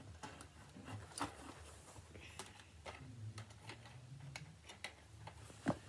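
Faint scattered clicks and taps of a plastic toy rifle and its magazine being handled, with a sharper click near the end.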